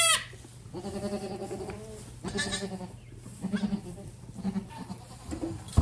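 Goats bleating: a long call about a second in, another shortly after, then a few short bleats.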